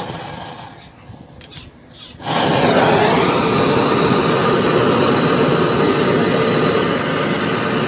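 Gas brazing torch flame comes on suddenly about two seconds in and then burns with a steady loud hiss, heating a copper refrigeration pipe joint for brazing.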